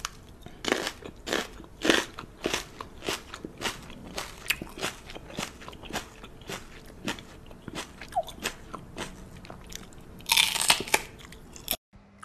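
A person chewing crunchy food with their mouth open, giving irregular loud crunches about twice a second. There is a longer noisy burst near the end, and the sound cuts off suddenly just before the end.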